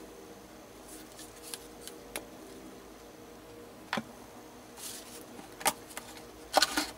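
A plastic squeeze bottle of acrylic gesso being handled and squeezed out onto a canvas, giving scattered clicks and taps. The sharpest cluster comes near the end, over a faint steady hum.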